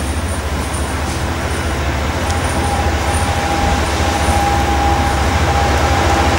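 A Freightliner Class 66 diesel-electric locomotive's two-stroke EMD V12 engine running under power as it hauls a freight train toward the listener. It is a deep, steady rumble that grows slowly louder. A steady high whine joins about two seconds in.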